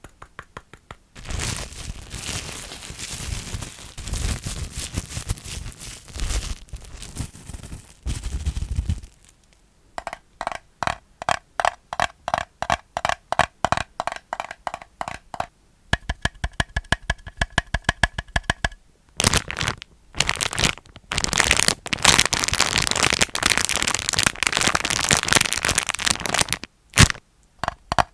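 Plastic crackling and crinkling close to the microphone in two long stretches. Between them comes a spell of rapid tapping, about four or five taps a second, which rings at a low note and then at a higher note.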